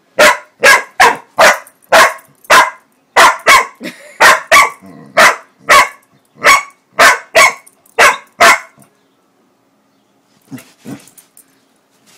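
Pitbull-corgi mix dog barking loudly, a run of about sixteen sharp barks at roughly two a second, then stopping. After a pause, two quieter, lower woofs follow near the end.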